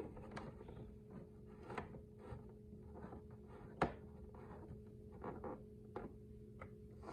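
Faint steady hum from a 1966 General Electric C-547 tube radio with no broadcast playing, with a few light clicks and rubs of the set being handled.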